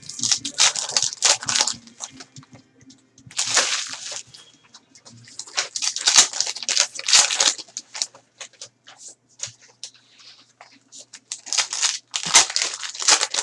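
Foil trading-card pack wrappers crinkling and tearing open by hand, with cards being handled: several bursts of rustling with short pauses between.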